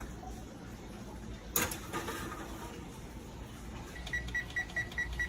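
A single knock, then a run of short, high electronic beeps from a kitchen appliance's controls, about four a second.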